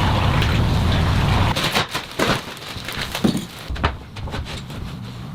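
A steady low rumble that stops about a second and a half in, followed by a run of irregular knocks and taps.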